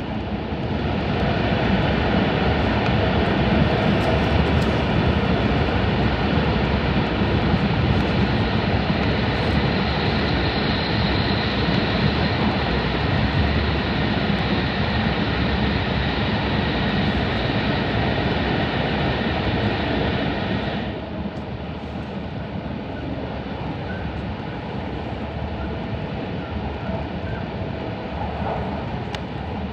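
Cabin running noise of an E5 series Shinkansen at speed: a steady rushing noise that grows louder and hissier about a second in as the train enters a tunnel, and drops back about twenty seconds in as it comes out into the open.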